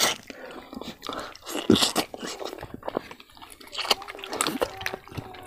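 Close-miked chewing of a hand-fed mouthful of rice and catfish curry: irregular wet smacks and small clicks. Toward the end, fingers knead rice in a wooden bowl.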